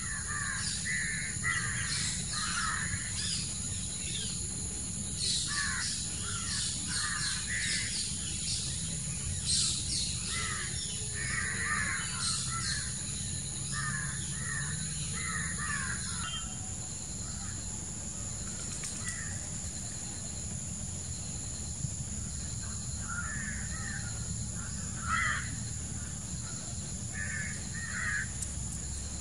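Harsh bird calls, many in quick series through the first half and a few more near the end, over a steady high-pitched drone of insects.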